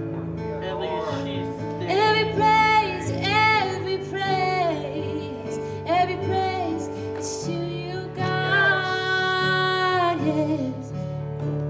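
Live church worship music: a band holds sustained chords while a singer's voice rises and falls in long, sliding phrases.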